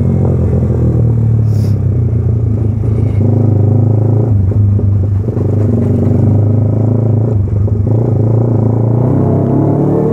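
Yamaha R15 V3's 155 cc single-cylinder engine running loud through an aftermarket SC Project exhaust at low riding speed. The throttle is rolled off and back on about four seconds in and again about seven and a half seconds in.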